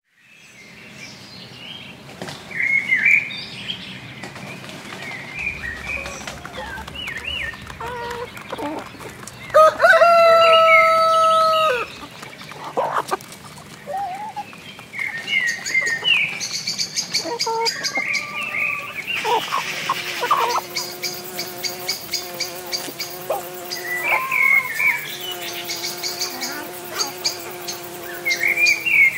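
Small birds chirp and twitter throughout. A rooster crows once, a long call about ten seconds in and the loudest sound. Chickens call with drawn-out clucks in the later part.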